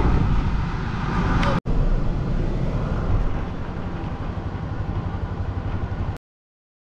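A moving vehicle's road and wind noise, a dense, uneven rumble. It breaks off for an instant about a second and a half in, then cuts to silence about a second before the end.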